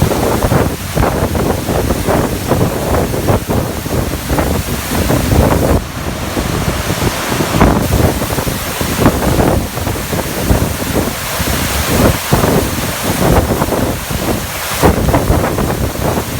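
A waterfall swollen after a typhoon, heavy water pouring and crashing loudly with constant irregular surges.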